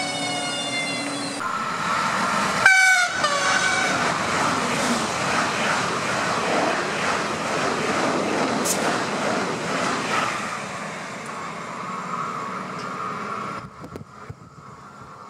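Whine of a Siemens Desiro HC electric multiple unit's traction drive, several tones at once, cut off about a second and a half in. A short train horn blast comes about three seconds in. Then an ICE high-speed train passes close by, a loud steady rush of wheels and air that drops away near the end.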